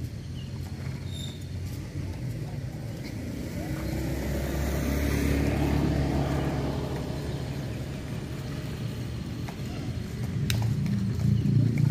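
A motor vehicle passing by: its engine sound rises to a peak about five to six seconds in, then fades away.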